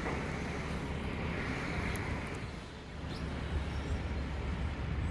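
Indian Railways inspection car running along the track at a distance: a low, steady rumble.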